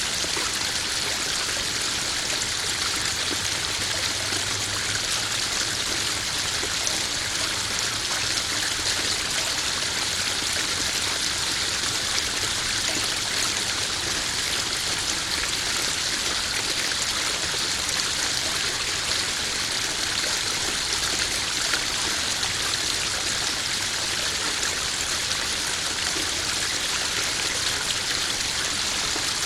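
Small garden waterfall splashing and trickling steadily into a koi pond.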